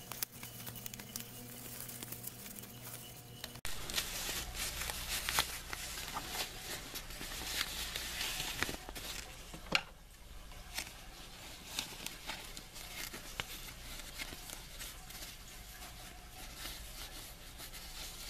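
Fabric rustling and crinkling as a layered cloth pad with a waterproof PUL layer is handled and turned right side out, with scattered small ticks and one sharper tap about ten seconds in.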